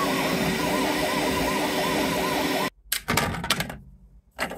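Bambu Lab X1-Carbon 3D printer running: fans and stepper motors, with a warbling tone over a steady hum, cutting off suddenly after about two and a half seconds. Then a few clicks and knocks as printed parts are handled on the build plate.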